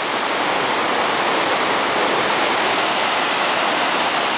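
A river waterfall and whitewater rapids rushing, a steady, unbroken hiss of churning water.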